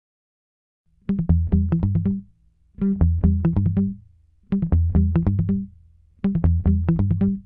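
Background music: a bass line with a sharp beat, played as four short phrases separated by brief pauses, starting after about a second of silence.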